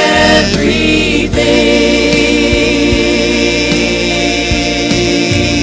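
Gospel vocal group singing, holding one long sustained note over steady low instrumental accompaniment with scattered drum hits.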